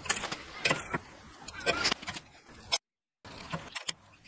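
Steel rule and combination square clinking and scraping against the steel uprights and twisted rebar as they are set in place: a few bursts of light metallic clicks. The sound drops out to total silence for a moment about three seconds in.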